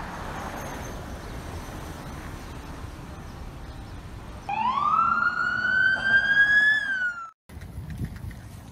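Street traffic noise, then an emergency vehicle siren wailing, loudest of all: one quick rise in pitch, a slow further climb, then a drop, cut off suddenly about seven seconds in.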